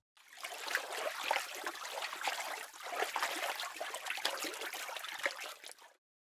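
Running water with a dense crackle of small splashes, cutting off about six seconds in.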